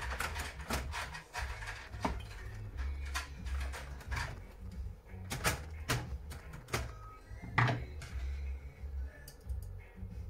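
Clicks and knocks of plastic and metal parts being handled inside an opened HP Color LaserJet Pro MFP M477 laser printer, scattered irregularly, with music playing in the background.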